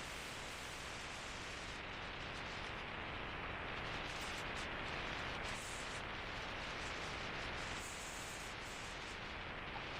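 Steady wind noise rushing over a small handheld camera's microphone while riding an electric bike.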